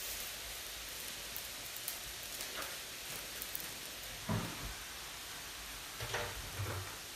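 Steady hissing from a hot, steaming wok on a large kitchen stove. A few light knocks of kitchen objects come about four seconds in and twice near six seconds.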